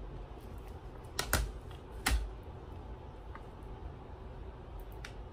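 A few light taps and clicks as a makeup brush and an eyeshadow palette are handled: two close together about a second in, another about two seconds in, and a faint one near the end.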